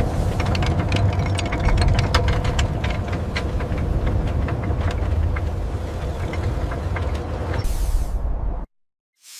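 Heavy machinery starting up: gears clanking and clicking rapidly over a deep, steady mechanical rumble. Near the end a short hiss like venting steam, then the sound cuts out abruptly.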